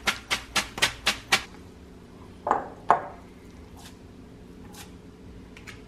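A red plastic colander of cooked rice vermicelli is shaken and knocked over a steel sink to drain, giving a quick run of knocks, about four a second, that stops about a second and a half in. Two short, louder clatters follow a little later.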